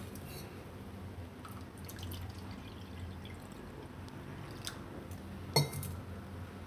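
Water poured from a steel vessel into a measuring cup, a faint trickle and drip, with one sharp knock near the end.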